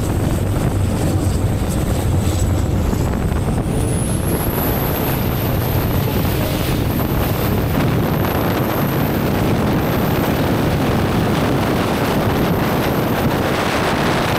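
Drone flying fast, its propeller motors making a steady loud rush with a thin high whine that rises in pitch about four seconds in and stays high.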